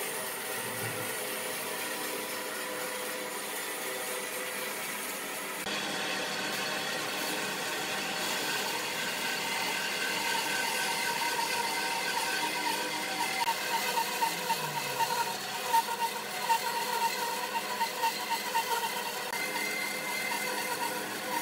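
An electric power tool running steadily, changing abruptly about six seconds in; from about halfway it grows louder and uneven.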